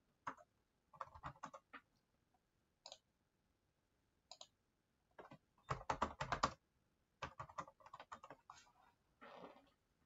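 Typing on a computer keyboard: faint, quick keystrokes in short bursts, with a denser run of typing in the second half.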